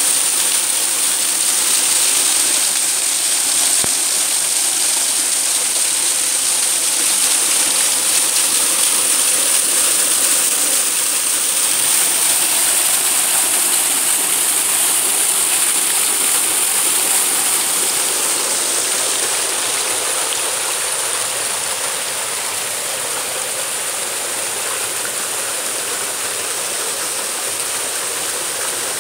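Waterfall plunging into a rock pool: a steady rush of falling and splashing water, a little softer after about twenty seconds.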